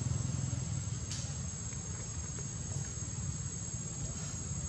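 Insects buzzing in one steady, high, unbroken tone, over a steady low rumble.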